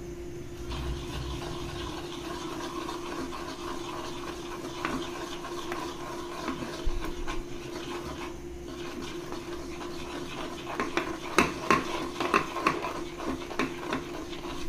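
A metal spoon beating curd and gram-flour batter in a steel bowl: soft scraping and stirring, with quick light clinks of the spoon against the bowl that come more often and louder in the last few seconds. A steady low hum runs underneath.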